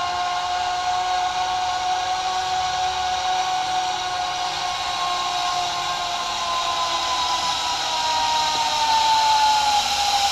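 A zip line trolley's pulleys running along the steel cable make a steady whining whir over a hiss. Near the end the pitch sags slightly and the whir grows louder.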